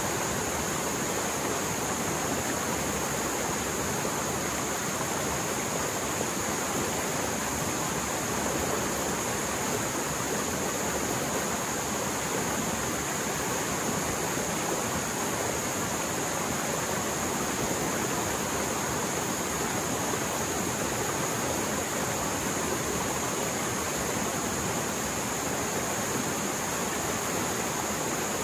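Mountain stream in flood after heavy rain, water flowing fast in a steady, unbroken roar.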